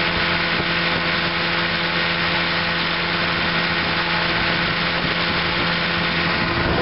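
1958 Evinrude Sportwin 10 hp two-cylinder two-stroke outboard motor running steadily in forward gear under way, with the rush of water from its wake.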